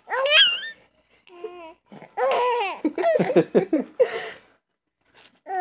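Baby laughing in a string of high-pitched squealing bursts. It falls quiet for about a second near the end, then gives one more short burst.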